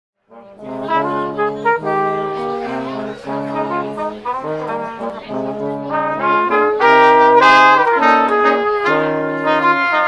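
Brass quartet of two trumpets, French horn and trombone playing sustained chords in harmony. It comes in just after the start and swells to its loudest about seven seconds in.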